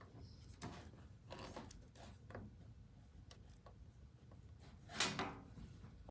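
A few light knocks and clicks of something being handled over a low steady hum, with one louder knock and rustle about five seconds in.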